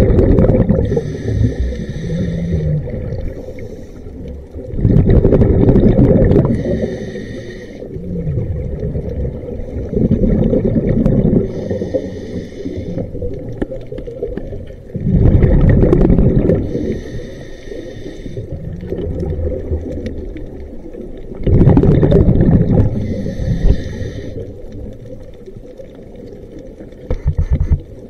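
Scuba diver breathing through a regulator, heard underwater: a loud rush of exhaled bubbles alternating with a quieter hiss from the regulator on each inhalation. The breaths repeat about every five to six seconds.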